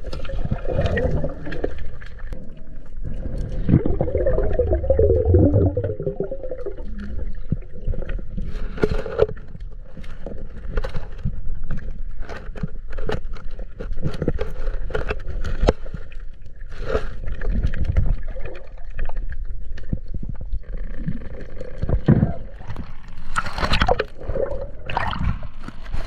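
River water sloshing and gurgling around people swimming and diving, with a steady low rumble and many sharp knocks and scrapes scattered throughout.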